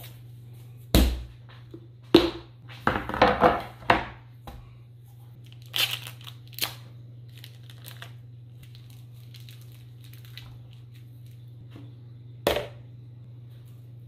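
Plastic wrapping on a chub of ground beef crinkling and tearing as it is handled and cut open, in bursts over the first few seconds, with a single knock near the end. A steady low hum runs underneath.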